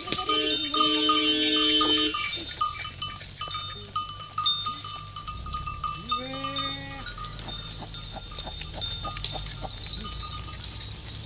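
A herd of cattle and goats on the move: small bells clinking over and over as the animals walk, with two drawn-out livestock calls, one at the start and one about six seconds in.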